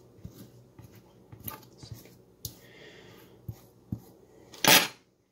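Food and utensils being handled: faint, scattered taps and clicks with a soft rustle midway. One louder, brief noise comes near the end, and then the sound cuts off to dead silence.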